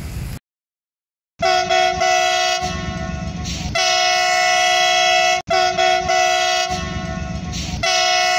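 Train air horn sounding a chord of several notes: two short blasts, a low rumble, then a long blast. The same sequence starts again about halfway through, after a brief cut.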